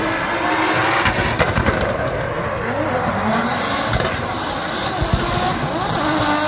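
Drift car's engine revving, its pitch rising and falling repeatedly and climbing again near the end.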